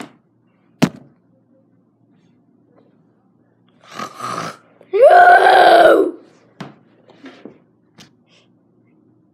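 A sharp click, then a breathy sound, then a loud, high-pitched vocal sound from a child lasting about a second that rises at its start and then holds. A few light clicks and taps follow.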